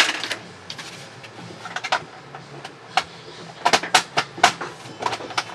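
Sharp plastic clicks and knocks of a laptop's bottom cover being fitted and pressed into place on its chassis. They come singly and in quick clusters, the busiest about two-thirds of the way through.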